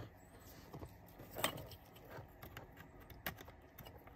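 Light plastic clicks and rattles of a remote-start wiring harness and its connectors being handled, with a couple of sharper clicks.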